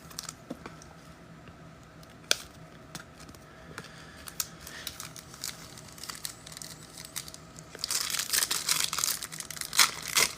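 Trading-card pack being torn open, its wrapper crinkling loudly for the last couple of seconds, after scattered light clicks and taps of cards and packaging being handled.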